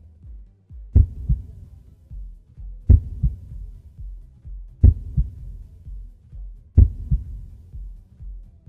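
Soundtrack heartbeat: slow, deep double thuds, a strong beat followed closely by a weaker one, repeating about every two seconds over a low drone.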